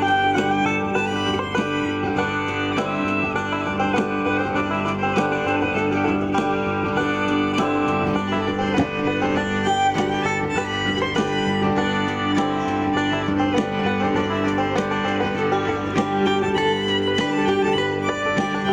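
Background music: upbeat country or bluegrass tune with plucked guitar or banjo and fiddle, playing steadily.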